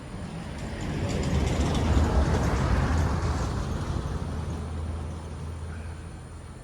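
A heavy road vehicle passing by: its engine rumble and tyre noise swell to a peak about two seconds in, then fade away.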